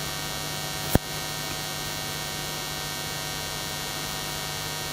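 Steady electrical mains hum with hiss from the sound system, with a single sharp click about a second in.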